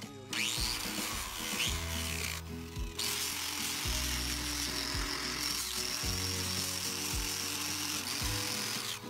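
A handheld power tool running and scouring rust from a Chevy 14-bolt axle housing. It stops briefly about two and a half seconds in, and a steady high whine joins in about halfway. Music plays underneath.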